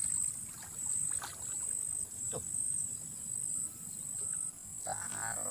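Insects chirring at a high pitch in steady pulses, about two a second.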